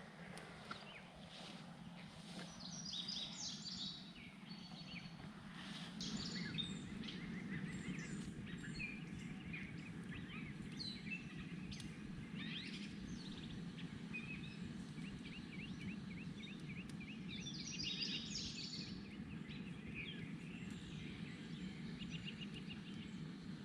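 Birds chirping and calling outdoors, with busier bursts of song about three seconds in and again near eighteen seconds, over a steady low background hum.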